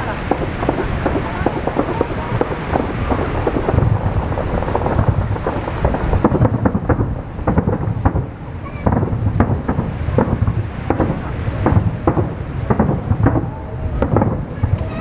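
Aerial fireworks shells bursting in dense succession: many overlapping deep booms and sharp bangs with a rolling rumble.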